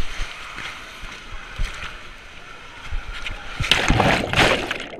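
Water rushing and sloshing as a rider slides down a water slide tube, ending in a loud splash into the pool about four seconds in.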